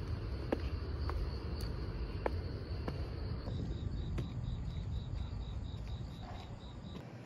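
Insects chirping: a steady high trill that turns about halfway through into evenly spaced chirps, roughly three a second, over a low rumble with a few faint clicks.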